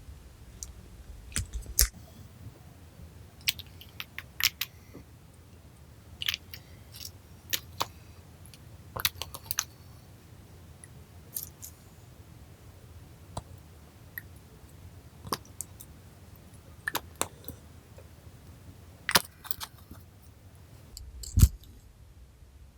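Slime being worked by hand, giving scattered sharp sticky clicks and pops about once a second, with one louder pop near the end.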